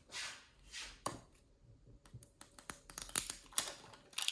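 Hands handling toy packaging: two soft rustles, a sharp click, then a run of small plastic clicks and taps with short rustles.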